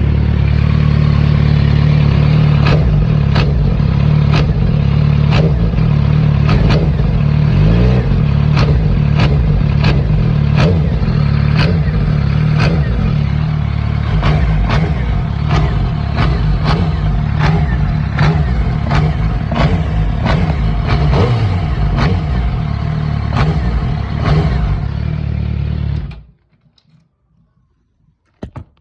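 2006 Suzuki GSX-R600 inline-four engine running, with a sharp clacking knock repeating about twice a second, the noise the owner says comes only when he blips the throttle. The engine cuts off suddenly a few seconds before the end, followed by one short knock.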